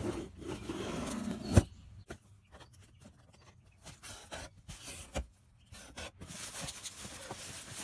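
Scissors slicing along the packing tape of a cardboard box, ending in one sharp snap about a second and a half in. Then cardboard flaps being handled with scattered clicks, and plastic packaging rustling inside the box near the end.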